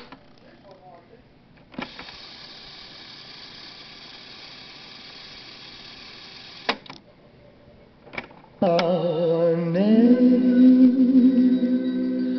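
Cassette deck of a JVC PC150 boombox: the music playing from tape stops, a transport key clicks and a steady hiss runs for about five seconds, as while the tape is wound fast. Two more key clicks follow, and the music starts again with its pitch sliding up as the tape comes up to speed, then plays on.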